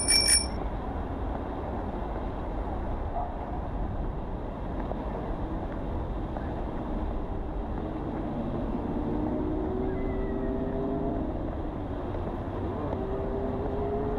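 Street traffic: a steady noise of passing cars, with an engine hum rising gradually in pitch in the second half. Two quick high-pitched metallic dings come right at the start.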